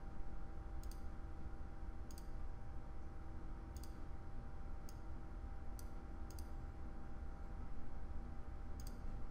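Computer mouse clicking now and then, about seven single clicks at irregular intervals, over a faint steady hum.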